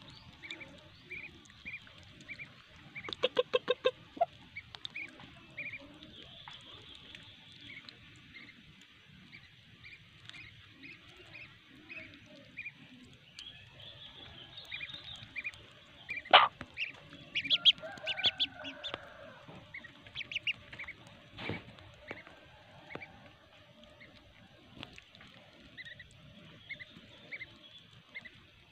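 Ducklings peeping, short high calls repeated every half second or so, while their mother hen clucks, with a fast run of loud clucks about three seconds in. A couple of sharp clicks stand out in the middle.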